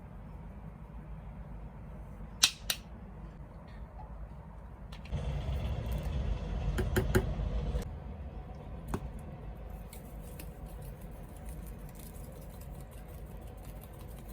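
Kitchen food-preparation handling sounds: two sharp clicks, then a few seconds of louder rustling and scraping with knocks, then faint crackling.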